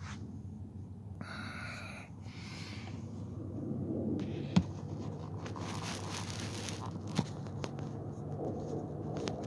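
Handling noise as the camera and gear are moved about: scraping and rustling with a short squeak about a second in, a sharp knock about four and a half seconds in, and a smaller click near seven seconds.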